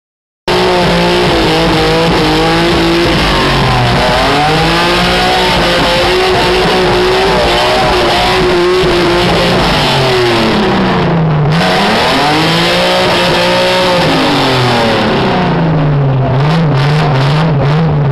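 A drift car's engine held at high revs and swinging up and down in pitch as the car spins donuts, over the rushing screech of its spinning rear tyres. The sound cuts in after about half a second of silence.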